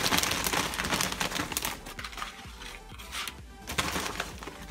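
Foil chip bag of nacho cheese Doritos crinkling as tortilla chips are shaken out and tumble onto a plastic plate, in uneven bursts of rustling.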